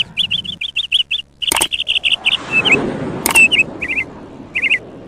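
Birds chirping in quick runs of short, high notes, with two sharp clicks, one about a second and a half in and one just after three seconds.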